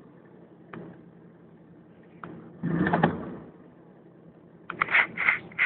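Faint steady idle of a 1977 Buick Electra limousine's engine, heard from inside the cabin, with two light clicks and a short scuffing noise about three seconds in.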